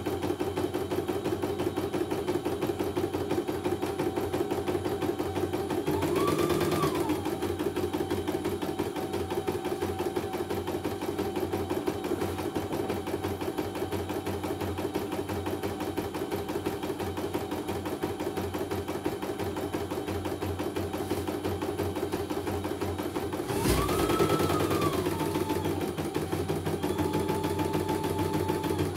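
A CNY computerized embroidery machine stitching a design in its hoop: a steady, fast needle rattle. Twice, about six seconds in and again about five seconds before the end, the motor's pitch briefly rises and falls. The machine is running smoothly with no snags.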